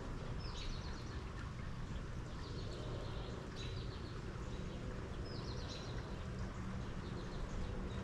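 Steady rain, with a bird singing short chirping phrases over it about every one to two seconds.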